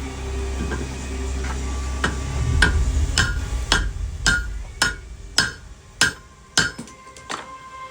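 Hand hammer striking hot steel on an anvil, a steady run of blows about two a second, each with a short metallic ring, starting about two seconds in.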